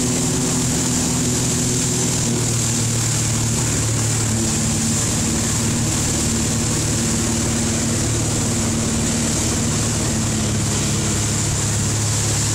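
Motorboat engine running steadily at speed while towing a tube, over a steady rush of wake water and wind.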